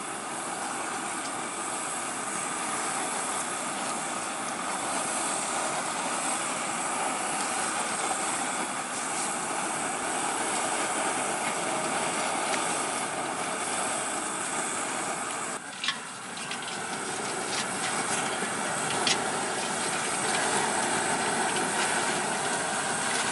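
Steady hiss of a gas stove burner running under a pot of simmering curry. About two-thirds of the way through comes a brief knock, followed by a few light clicks.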